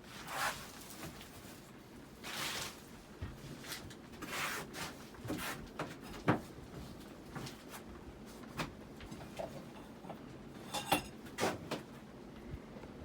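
Hunter Infiniti ceiling fan running on high, its air gusting across the microphone in soft whooshes, with a few light clicks and knocks scattered through.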